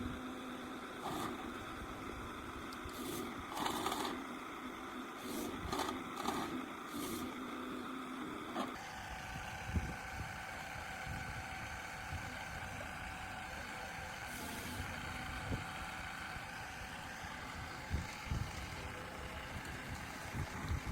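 Forestry harvester's engine running steadily, with short scraping and cracking sounds from timber being handled in the first half. The engine note changes abruptly about nine seconds in.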